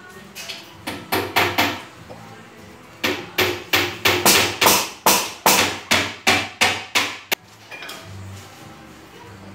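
Hammer blows: a few strikes in the first two seconds, then a steady run of about a dozen, roughly three a second, each with a short ringing tail, ending with a sharp crack a little past seven seconds in.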